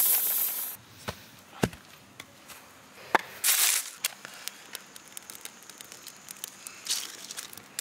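A loud rasping rush at the start and a couple of sharp knocks, then a match struck on its box flares with a short hiss about three seconds in. Dry leaves and twigs then catch in the brick fire pit and crackle with many small irregular pops.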